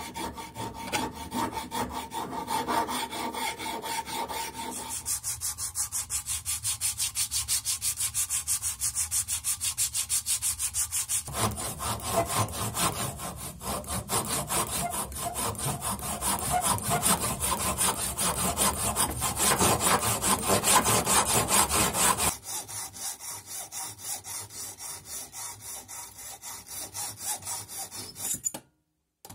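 Hand tools worked in repeated back-and-forth strokes on a wooden hammer handle: a rasp shaping the handle, then a handsaw cutting a slot into its end for a wedge. Near the end a hacksaw cuts through a thin metal rod.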